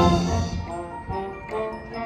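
School wind band playing live. The loud full brass ends a phrase about half a second in, leaving a softer passage in which mallet percussion rings out over held notes.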